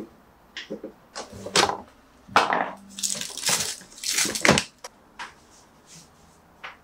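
Plastic bin liner crinkling and rustling while it is pulled out of a plastic trash bin, with light knocks from the bin's plastic parts. A few short knocks come first, then denser, louder crinkling from about two to five seconds in.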